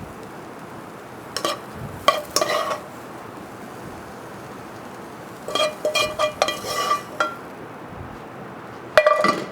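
A metal utensil clinking and scraping against a pan and a ceramic bowl as cooked mushrooms are spooned out, in four short ringing clusters over a steady faint hiss.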